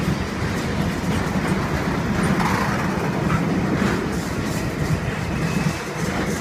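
Loaded car-carrier freight wagons running past on the track: a steady noise of wheels on rail with a few faint clicks.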